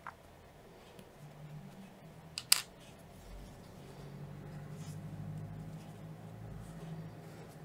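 Faint handling sounds of crocheting, a crochet hook working through yarn, with two sharp clicks close together about two and a half seconds in, over a faint low hum.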